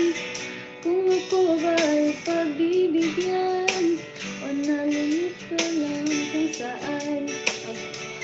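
A woman singing a song into a microphone over backing music with plucked guitar.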